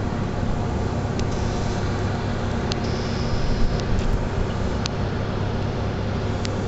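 Steady low rumble and hiss of airport apron machinery, with a few faint clicks.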